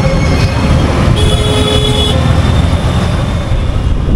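Wind buffeting the microphone and road noise while riding a two-wheeler through city traffic. A vehicle horn sounds briefly about a second in.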